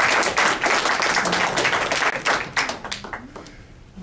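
Applause: a group clapping, dense and loud, dying away about three seconds in.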